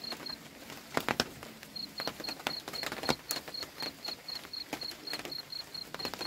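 Goats feeding on fresh-cut grass and leaves in a wooden trough: irregular crunching, tearing and rustling of leaves, with a few louder knocks about a second in. A high-pitched chirp repeats about four times a second behind it.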